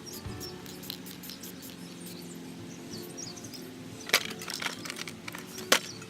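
Two sharp cracks about a second and a half apart near the end, from hand-tool work on the truck, over a steady low hum.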